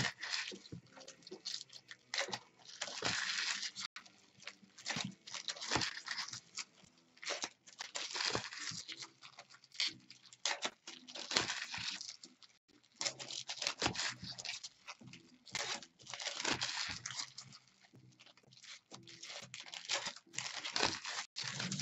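Trading-card pack wrappers and cards being handled: a run of short rustling, crinkling and tearing bursts with soft clicks, about one or two a second.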